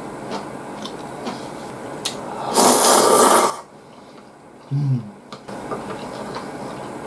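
Tsukemen noodles slurped up from the dipping broth in one loud, noisy slurp lasting about a second, followed by a short low vocal sound and soft clicks of chopsticks and chewing.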